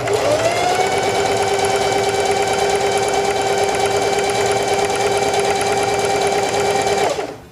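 Singer Heavy Duty 4411 sewing machine running and stitching the side of a four-step buttonhole, with a steady motor whine. It speeds up briefly at the start and stops sharply about seven seconds in.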